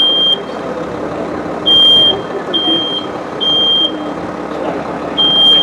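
Smoke alarm sounding its evacuation pattern, set off by a fire burning in the room: a piercing high beep of about half a second, three beeps to a group with a longer pause between groups.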